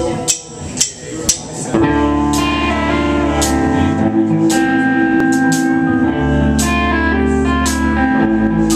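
Live rock band playing: a few sharp hits about half a second apart, then about two seconds in the full band comes in with electric guitars, drums and keyboard, with repeated cymbal-like crashes.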